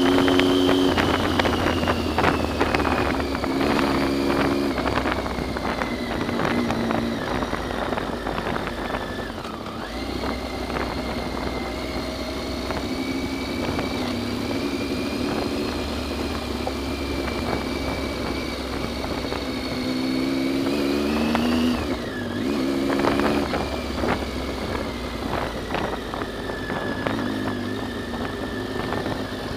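Motorcycle engine running while riding a rough dirt track. The note rises and falls with throttle and gear changes, with knocks and rattles from the bumpy ground. The engine sound changes abruptly about two-thirds of the way through.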